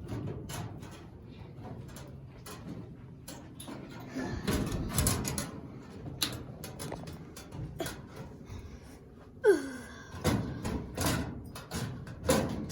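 Irregular knocks and clatter of objects being handled, with a short squeak sliding down in pitch about nine and a half seconds in.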